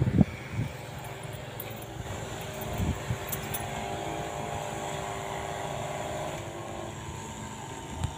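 A small motor running steadily with a held hum, its pitch shifting about six and a half seconds in.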